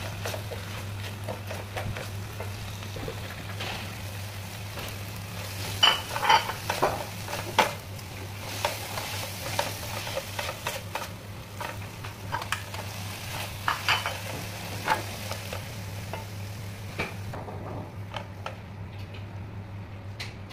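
Snails, onion and chili sizzling in a frying pan while a slotted spatula stirs them, scraping and tapping on the pan, loudest about six seconds in. A steady low hum runs underneath, and the high hiss of the sizzle dies away near the end.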